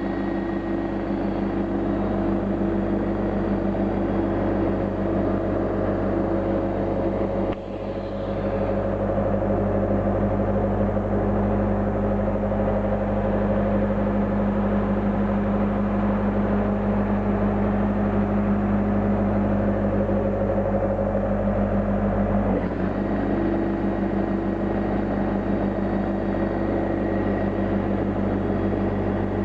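Electric air compressor running steadily with a constant motor hum, its tone changing abruptly about seven and a half seconds in and again about twenty-two seconds in.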